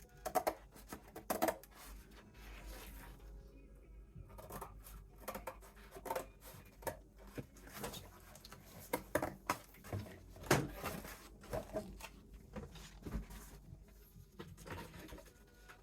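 Scissors snipping through poster board, a run of irregular cuts and paper rustles.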